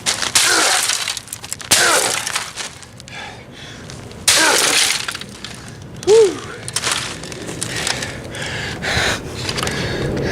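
A Canon MP620 inkjet printer being smashed: about four loud crashes of plastic breaking and clattering, with lighter knocks between them.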